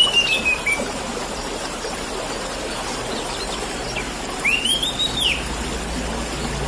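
Orange-headed thrush (anis merah) singing: a whistled phrase that falls in pitch right at the start, and a second whistled phrase that rises and then falls about four and a half seconds in, over a steady trickle of water.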